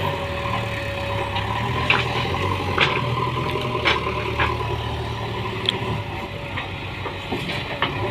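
JCB backhoe loader's diesel engine running steadily, with several sharp knocks and clanks.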